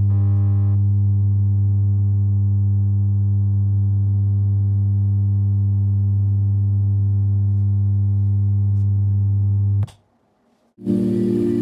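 Panasonic home theatre subwoofer giving out a loud, steady low hum with a string of overtones, the humming fault the repair is meant to cure. The hum cuts off sharply about ten seconds in.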